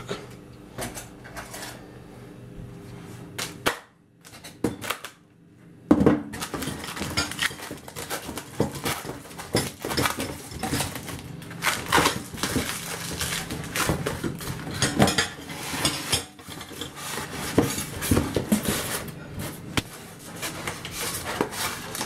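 A knife and hands working at polystyrene foam packing around a glass microwave turntable plate: repeated scrapes, rustles and sharp clicks, with a short near-quiet pause about four seconds in.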